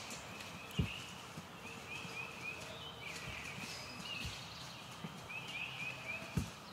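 A few dull thumps of footsteps through dry leaves and brush on the forest floor, the loudest about a second in and near the end, while a songbird sings runs of short, quick chirping notes.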